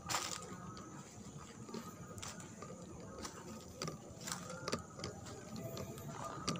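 Footsteps crunching through dry leaf litter: irregular crackles and snaps, over a faint steady high tone.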